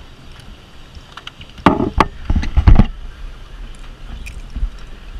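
A burst of knocks and thumps lasting about a second, starting just under two seconds in, over a low steady rumble.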